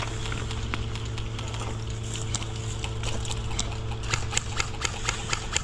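A series of sharp clicks over a steady low hum, coming faster near the end at about four to five a second.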